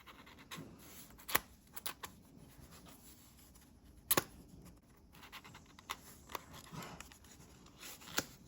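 A paper-wrapped notebook being opened and handled: light paper and card rustling with scattered sharp clicks and taps, the loudest about a second and a half in and about four seconds in.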